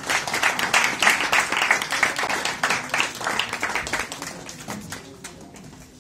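Applause from a crowd clapping their hands, thinning out and fading away over the last two seconds.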